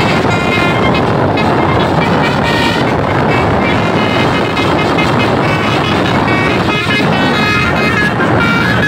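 Bus's multi-tone 'basuri' telolet horn playing a tune of short notes that change pitch, over the loud noise of the passing bus.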